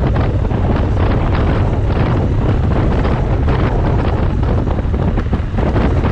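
Steady wind buffeting on the microphone of a moving Triumph 900cc motorcycle, over a constant low rumble from the bike at cruising speed.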